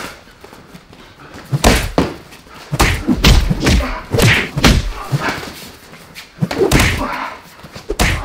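Gloved punches and kicks landing in kickboxing sparring: irregular heavy thuds and slaps that come in flurries, the densest through the middle.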